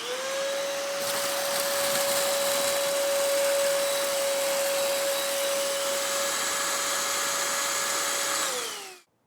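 Black+Decker Dustbuster Pivot VAC (BDH2000PL) cordless hand vacuum switched on: its motor spins up with a rising whine, then runs at a steady high whine over a rush of air for about eight seconds. It then winds down, falling in pitch, and stops as it is switched off.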